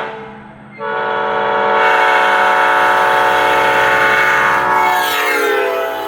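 Multi-chime locomotive air horn sounding a chord. A short blast cuts off at the very start, then a long blast begins about a second in and holds steady. Near the end its pitch drops and it weakens.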